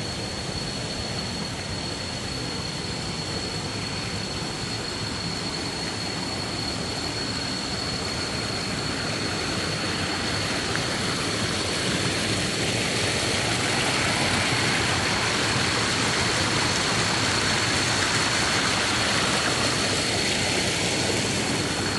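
Steady rushing of flowing water, growing gradually louder, with a thin steady high-pitched whine over it.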